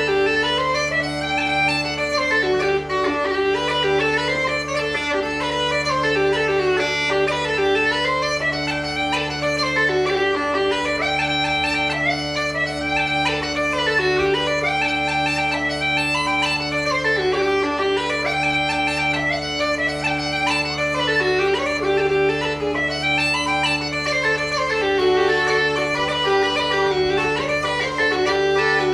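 Solo uilleann pipes playing a jig: a quick melody on the chanter over steady drones.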